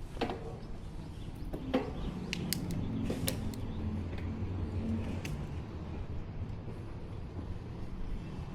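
1994 GT Timberline mountain bike creaking and clicking while being ridden, a few sharp clicks in the first few seconds over a steady low rumble of riding along the road.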